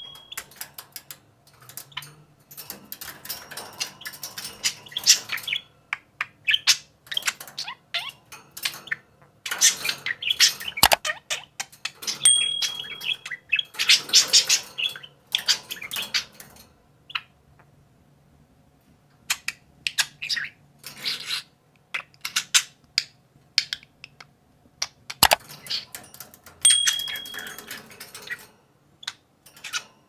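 Budgerigars chattering and chirping in irregular bursts of short calls. A short high beep sounds twice, and there are a couple of sharp knocks.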